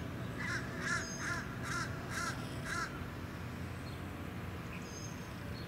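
A crow cawing six times in quick succession, about two caws a second, over a steady low background rumble. A brief high whistled note sounds near the end.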